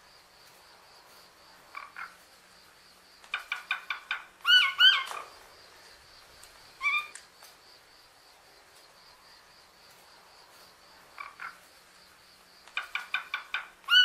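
Common hill myna calling: a short double call, a quick run of about five sharp clicking notes, then two loud looping whistled notes, and a single call a couple of seconds later. The same sequence comes again in the second half, over a faint steady high whine.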